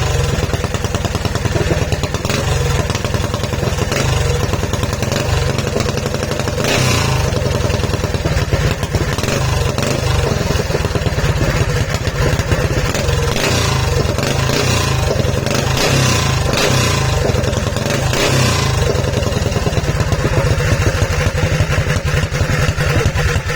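Yamada 18 hp engine running steadily with a fast, even firing beat, and a few short bursts of higher-pitched rattle around the middle.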